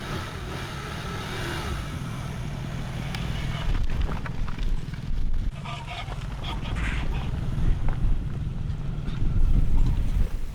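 Diesel truck engine running with a steady low rumble, with a few short higher-pitched sounds about five to seven seconds in.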